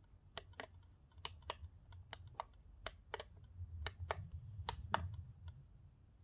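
About a dozen sharp clicks at irregular intervals, like keys or buttons being pressed, over a low hum.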